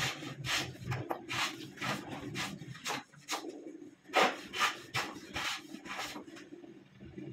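Hand plane shaving the edge of a wooden panel door in short strokes, about two a second, with a brief pause midway. A little wood is being taken off the edge so the door fits its jamb.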